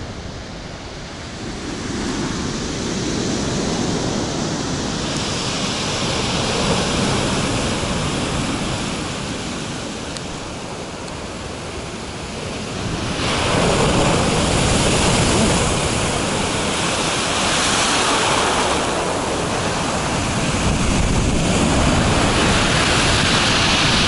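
Stormy sea surf: waves breaking and washing up a pebble beach in repeated swells, growing louder about halfway through.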